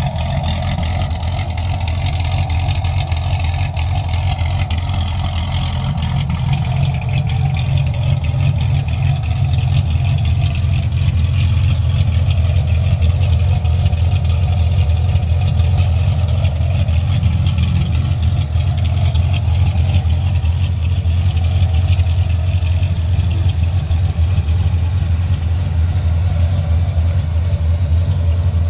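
Corvette ZR1's supercharged 6.2-litre LS9 V8, modified with a Davenport Stage 5 upgrade and headers, idling steadily with a low, even note through its quad-tip exhaust.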